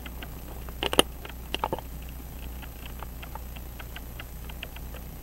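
Small metallic clicks and taps as a pocket-watch dial is pressed and worked onto the movement in a movement holder, the sharpest about a second in and a few more near the middle, over faint quick ticking.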